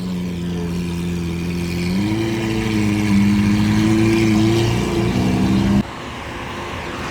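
A car's engine running at a steady elevated idle, stepping up to a slightly higher held rev about two seconds in, then dropping off and going quieter near the end.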